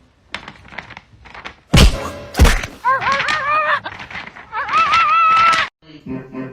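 Two heavy thumps about two-thirds of a second apart, followed by two long, wavering high-pitched cries.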